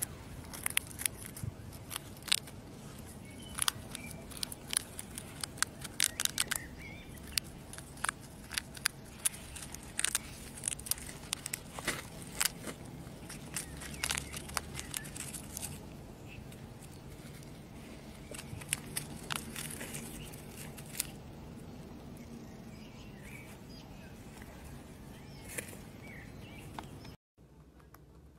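A hamster gnawing and crunching food, heard as irregular crisp cracks and clicks, with light rustling in wood-shaving bedding. The cracks come thick and fast at first and thin out after about twenty seconds.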